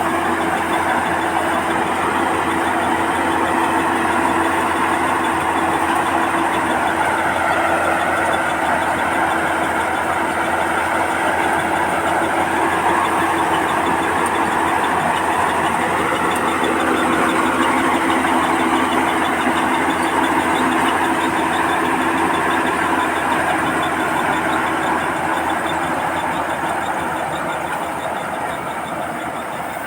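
Combine harvester running steadily under load while harvesting rice, engine and threshing machinery giving a loud continuous drone.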